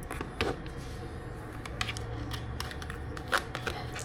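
Scattered light clicks and rustles of small objects being handled, with a faint low hum underneath.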